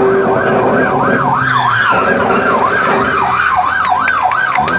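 Toy police car's electronic siren, its pitch sweeping quickly up and down about two and a half times a second. It starts suddenly.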